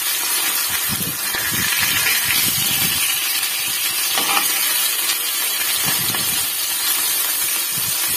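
Pieces of fish sizzling as they shallow-fry in hot oil, a steady hiss, with a few soft knocks as a spatula turns them in the pan.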